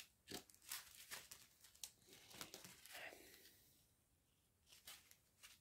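Faint crinkling and rustling of small plastic zip-lock bags of round diamond-painting drills being handled, with scattered light clicks. It is busiest in the first three and a half seconds, with a few more rustles near the end.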